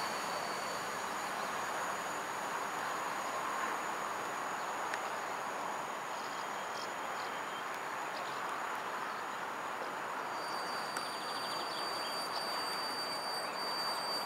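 EN57 electric multiple unit rolling slowly along the track, a steady, even running noise with no distinct wheel beats.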